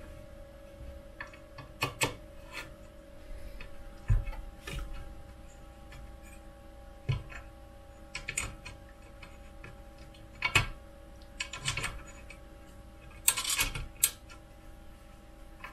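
Irregular small clicks and taps of a screwdriver and a small M3 screw against a 3D printer's bed plate and frame as the screw is worked into place, some coming in quick clusters. A faint steady hum runs underneath.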